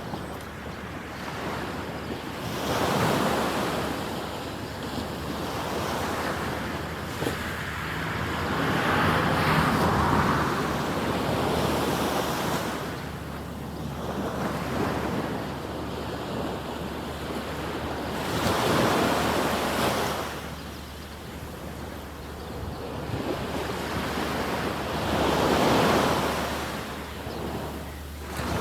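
Small sea waves breaking and washing up a sandy beach, swelling to a louder surge four times, several seconds apart. Wind rumble on the microphone underneath.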